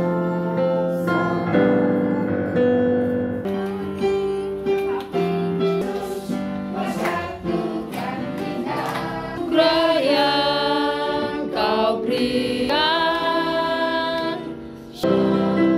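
A group of people singing a song together, accompanied on a digital piano; the voices grow stronger about two-thirds of the way through.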